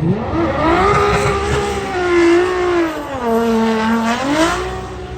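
Drift car engine revving hard through a slide, over a hiss of tyre noise. The engine note climbs and holds, drops about three seconds in, climbs again, then falls away near the end.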